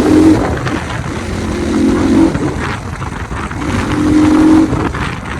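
Motorcycle engine running while riding, with wind rushing over the microphone; a steady engine tone swells up three times.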